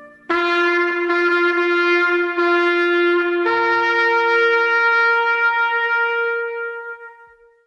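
Closing notes of a song: a solo wind instrument holds a long note, sounds it again about two seconds in, then steps up to a higher note that is held and fades out near the end.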